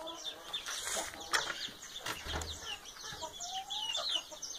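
Chicks peeping in a rapid, continuous stream of short, high, falling chirps, with a hen clucking among them.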